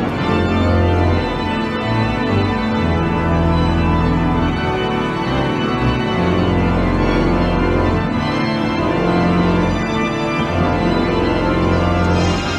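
The pipe organ of St Asaph Cathedral playing an improvisation: full sustained chords over deep held bass notes that shift every few seconds.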